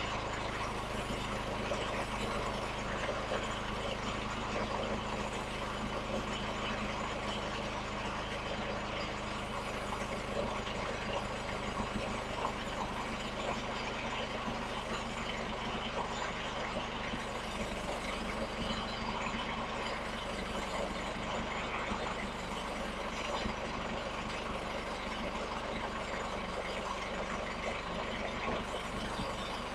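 Portable sawmill's small gas engine running steadily at a constant pitch and level.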